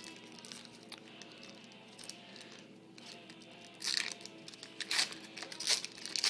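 Trading cards being handled and slid against one another, with several short, sharp swishes in the second half as cards are flipped through, over faint background music.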